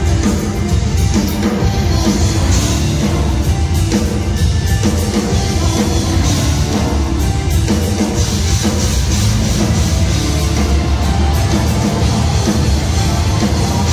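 Live rock band playing at full volume: a pounding drum kit under heavy electric guitars.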